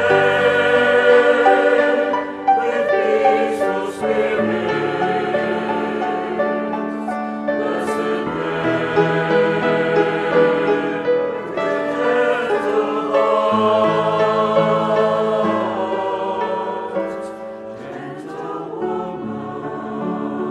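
A choir sings a slow hymn in long held chords, growing softer near the end.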